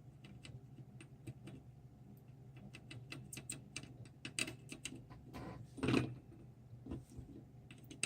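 Small irregular clicks and taps of tools and parts being handled on a workbench during surface-mount soldering, with a louder clatter about six seconds in, over a faint steady low hum.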